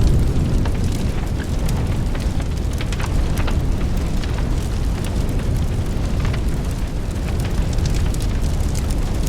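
A steady low rumble with many faint clicks and knocks scattered through it.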